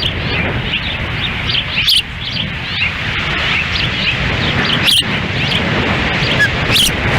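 Wind buffeting the microphone in a steady low rumble, with many short high chirps from ospreys at the nest during a feeding. A few sharp knocks break in, about two seconds in and again near five and seven seconds.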